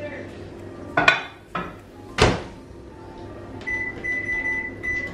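Microwave oven being loaded and set: two sharp knocks as the bowl goes in and the door is shut, then high electronic beeps from the microwave during the last second and a half.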